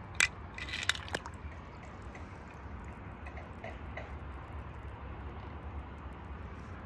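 Toy cars being handled: a sharp click, then a brief rustle with two more clicks within the first second. After that only a steady low background hum remains.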